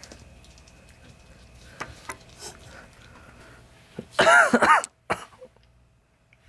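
A cat, worked up on silvervine, gives a loud, short call in two rise-and-fall parts about four seconds in. Soft scuffs and clicks of it rolling about come before.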